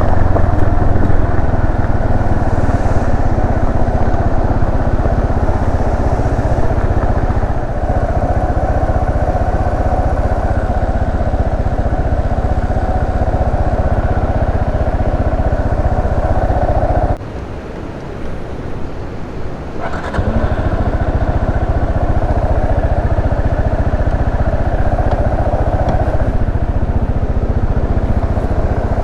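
Yamaha Serow 250's single-cylinder four-stroke engine running steadily as the motorcycle is ridden along a forest road. Past the middle the sound drops away for about three seconds, then picks up again.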